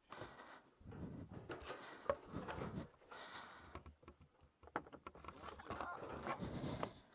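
Close heavy breathing and rustling of clothing and gear, in a run of short swells, with a sharp click about two seconds in.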